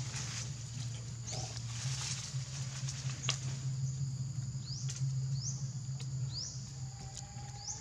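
Outdoor ambience: several short, high chirping calls, each rising quickly in pitch, coming about once or twice a second in the second half, over a steady high hiss and a steady low hum, with a few soft clicks.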